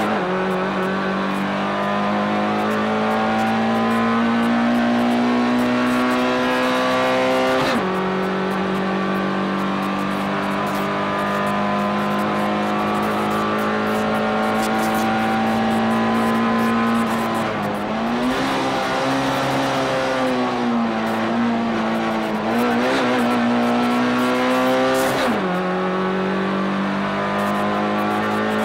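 Race car engine heard from inside the cockpit, held at high revs under full throttle, its pitch climbing slowly. The pitch drops sharply twice, about eight seconds in and again near the end, as the driver shifts up. In between, the pitch dips and wavers up and down as the throttle is eased and reapplied.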